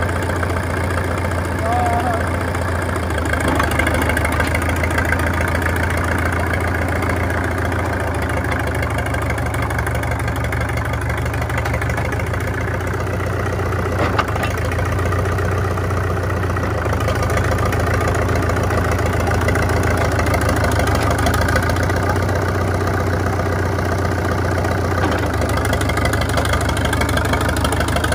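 International Harvester TD-6 crawler tractor's four-cylinder diesel engine running steadily with a fast, even beat while the crawler is driven about, the engine newly revived after years standing in a barn. A single sharp knock stands out about halfway through.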